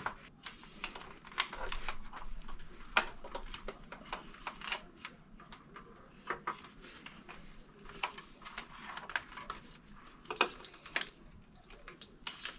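Irregular light clicks and taps, with some rustling, of small plastic parts and wiring being handled and pressed into place.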